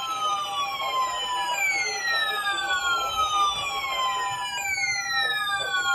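Weather alert radios sounding a siren-like alarm for a NOAA Weather Radio weekly test: long falling sweeps of about three seconds each, overlapping and repeating, over a steady held tone.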